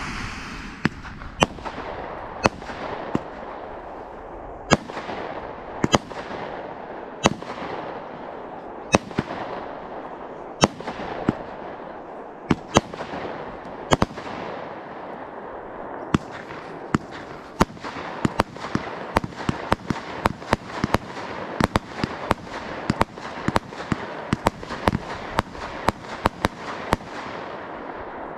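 Fireworks going off: sharp bangs about once a second with a hiss trailing after each. About halfway through they turn into a dense, rapid run of reports.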